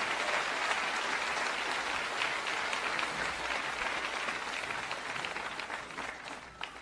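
Audience applauding after the choir's final note: a large crowd clapping steadily, dying away near the end.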